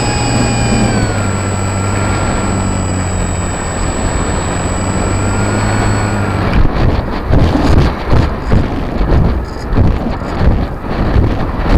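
RC model airplane's motor and propeller heard from an onboard microphone, running with a steady hum and a thin high whine, then cutting out about six and a half seconds in. After that, uneven gusts of wind rush over the microphone as the plane glides low with the propeller stopped.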